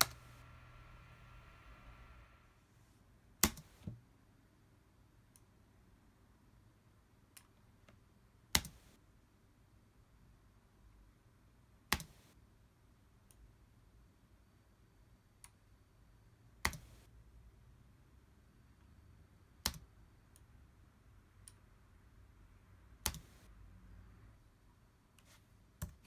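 Sharp, isolated clicks of a computer mouse and keyboard, about every three to four seconds, one of them doubled. A faint steady hum stops about two and a half seconds in.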